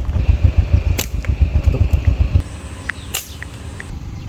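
Two sharp snaps of a slingshot's bands being shot, about two seconds apart. Under the first half runs a low, buffeting rumble that stops about two and a half seconds in.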